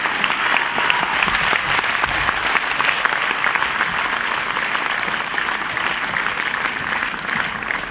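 Audience applauding steadily in a theatre hall, a dense patter of many hands clapping.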